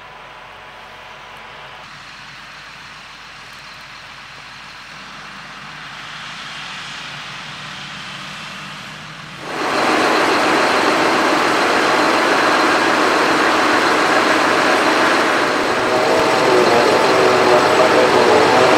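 John Deere self-propelled forage harvester chopping grass, heard steady and fairly distant, with its tractor and silage wagon running alongside. About halfway through, the sound jumps to the much louder diesel engines of John Deere tractors pulling silage wagons close by, with the engine note rising near the end.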